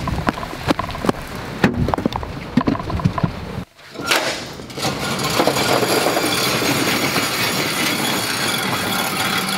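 Footsteps on wet pavement in the rain for the first few seconds. Then a metal roll-up garage door being hauled open by hand, giving a long, steady rattle.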